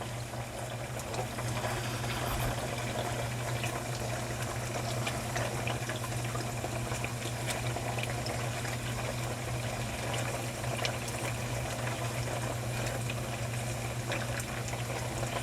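Tofu frying in hot oil, a steady sizzle with scattered small crackles and pops, over a steady low hum.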